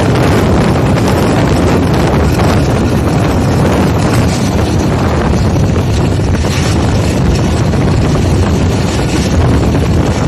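Rumble of a moving passenger train heard from an open coach window, under a steady rush of wind on the microphone.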